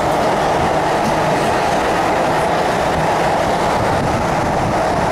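MTR Disneyland Resort Line M-Train, a Metro-Cammell electric multiple unit, running along the line, heard from aboard: a steady rumble of wheels on rail with a faint hum underneath.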